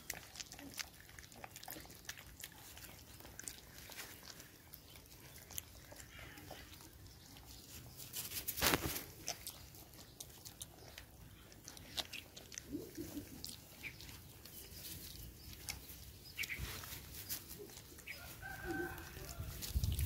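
Puppies eating rice from a plate and a plastic dish: a steady run of small chewing and lapping clicks, with one louder knock about nine seconds in.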